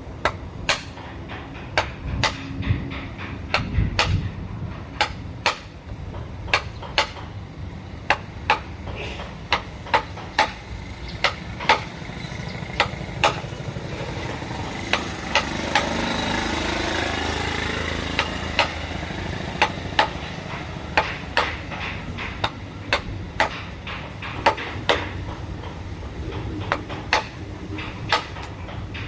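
Repeated sharp taps of a mallet driving a carving chisel into wood, irregular and roughly one to two a second, over a steady low hum, with a broader swell of noise around the middle.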